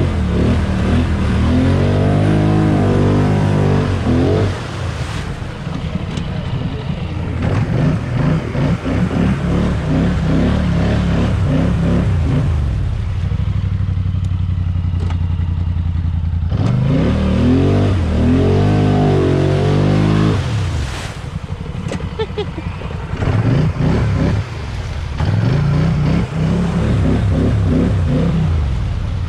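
Polaris Sportsman Highlifter ATV engine running under load, its pitch climbing as it is throttled up and falling back when the throttle eases, twice over, with a steady lower engine drone between the climbs. This is the varied-throttle running of a new engine being broken in.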